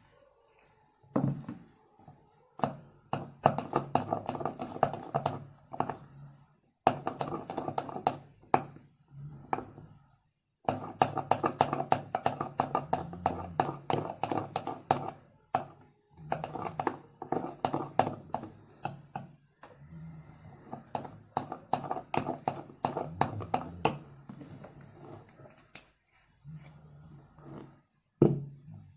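Sticky homemade slime of Fevicol glue and Pond's powder being worked, giving dense runs of rapid wet clicks and squelches in bursts of several seconds with short pauses between.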